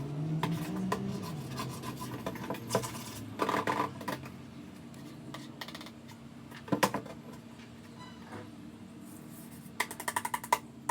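Items being unpacked and handled: rubbing and scraping with scattered sharp clicks and taps, in a few quick clusters about a third of the way in, midway, and near the end.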